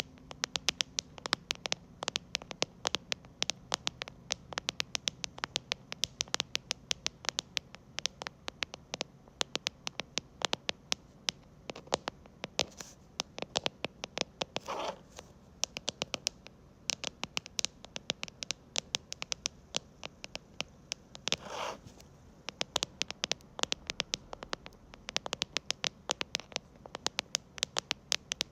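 Fingers tapping rapidly and irregularly on the keys of a mechanical keyboard with creamy-sounding switches, several clicks a second, with two brief scratching rubs, one about halfway through and one later on.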